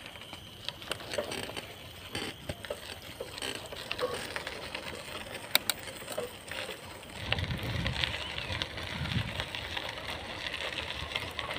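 Bicycle rolling along an unpaved gravel path: tyre crunch with scattered light clicks and rattles from the bike. A louder low rumble sets in about seven seconds in.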